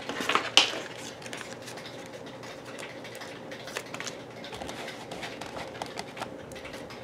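Plastic planetarium dome being turned by hand on its month ring: a few sharp clicks about half a second in, then light scattered ticks and handling rustle.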